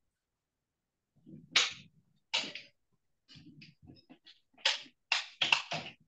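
A run of short breathy hisses and puffs of air, about eight in all. They start about a second in and come closer together over the last second and a half.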